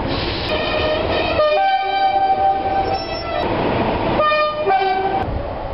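Diesel locomotive's two-tone horn sounded twice, each time a low note followed by a higher one. In the first, longer blast the high note is held about two seconds; the second blast is short. Both sound over the running noise of the train.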